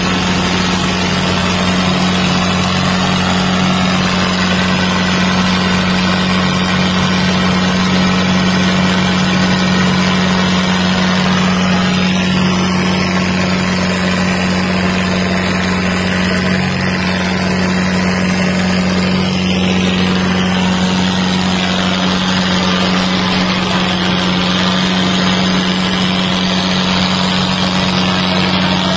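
Diesel tractor engine running at a steady pitch, a constant loud drone.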